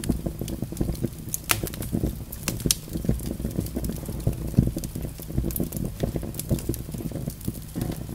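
Large open flame burning in a clay lamp: a steady low rush with frequent sharp crackles and pops.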